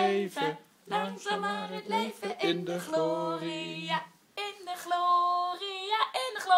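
A woman singing unaccompanied in long held notes that step between pitches, with two short breaks for breath.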